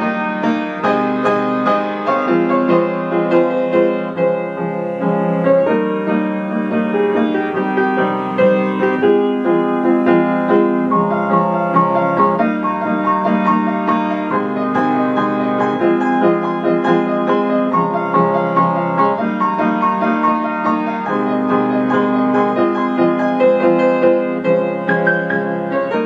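Background piano music: a slow melody over held chords.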